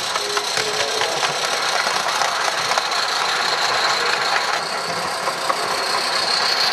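Gauge 1 live steam model locomotive running with its train, a busy rapid rattling beat under a steady high tone.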